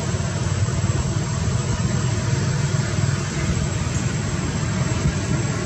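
Steady low rumbling background noise with an even hiss and a faint, thin, high steady tone; no distinct events.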